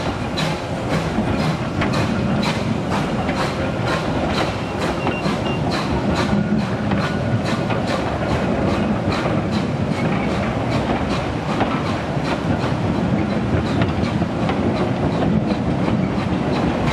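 Wooden narrow-gauge railway coaches rolling past close by. Their wheels click in a steady, even rhythm over the rail joints above a continuous low rumble.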